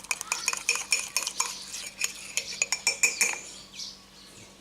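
A fork clinking and scraping against a coffee mug while stirring runny cake batter: a quick run of clinks that stops about three seconds in.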